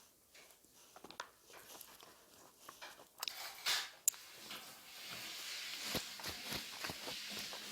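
Eating noises while chewing bossam: small clicks and knocks, a short rustle about three and a half seconds in, then a steady soft hiss.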